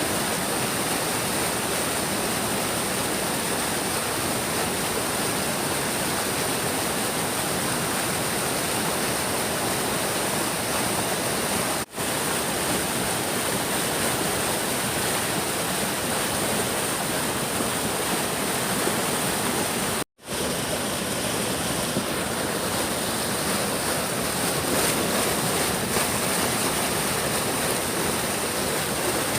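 A big stream rushing steadily with a dense, even noise of flowing water. The sound cuts out for an instant twice, about twelve and twenty seconds in.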